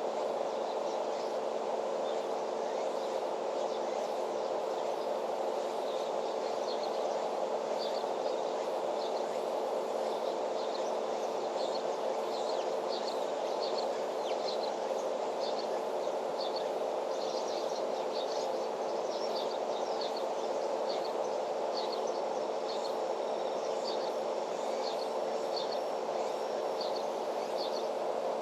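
Outdoor farm ambience: a steady hum, with many short, high chirps scattered through it.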